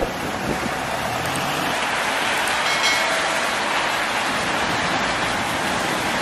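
Steady hiss of traffic on a wet city street in falling snow.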